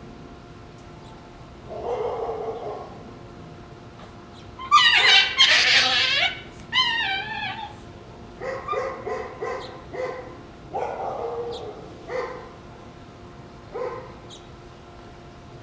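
Shiba Inu puppies squabbling over a bone with growls and odd fox-like screams. The loudest is a burst of high, wavering screams about five seconds in, followed by a run of short yips and further growls and single yelps.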